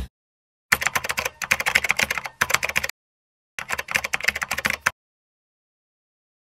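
Computer keyboard typing sound effect: two runs of rapid keystrokes, the first about two seconds long starting under a second in, the second shorter, with dead silence between them.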